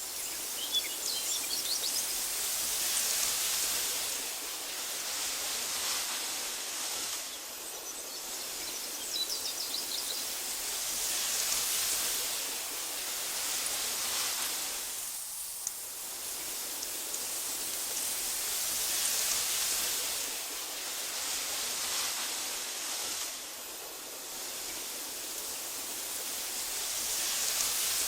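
Wind blowing through tall meadow grass: a steady hiss that swells and eases in slow gusts every several seconds. A few faint bird chirps come near the start and again about nine seconds in.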